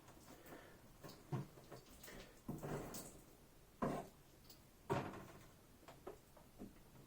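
Scattered light knocks and short scrapes from a cold uncapping knife and a wooden honey frame being worked by hand, the louder scrapes about two and a half, four and five seconds in.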